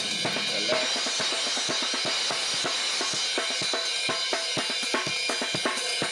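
Acoustic drum kit played in a fast, busy groove: rapid snare and drum strokes with bass drum under the steady wash of a ridden Sabian cymbal.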